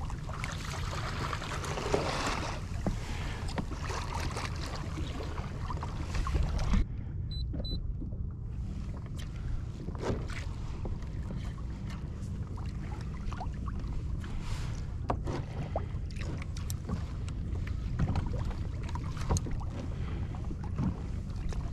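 Wind on the microphone and water lapping against a fishing kayak's hull, a steady low rumble with scattered light clicks and knocks; the higher hiss briefly drops away about seven seconds in.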